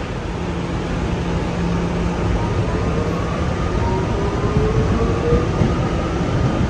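Kawasaki R211A subway train running on the rails, a steady rumble with a faint motor whine that rises slowly in pitch as the train picks up speed after leaving a station. A sharp click comes right at the start.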